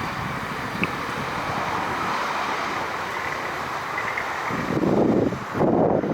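Steady jet noise from a Boeing 737-300's engines. Wind buffets the microphone in gusts about five seconds in.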